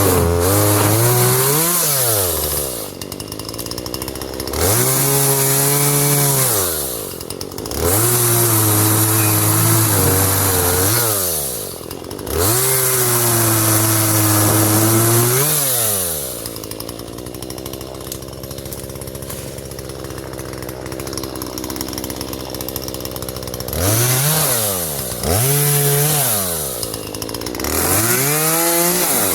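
Small two-stroke chainsaw, likely a Husqvarna 120, cutting up storm-fallen limbs. It revs to full throttle and holds there for two to three seconds at a time through each cut, then drops back to idle. There are four long cuts, a longer idle stretch, then three shorter revs near the end.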